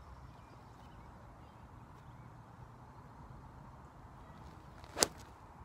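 Golf iron striking at impact: one sharp crack about five seconds in, after a few seconds of faint background.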